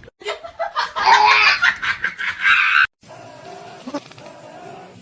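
A person laughing in several bursts, cut off suddenly about three seconds in, after which a quieter, steady background sound follows.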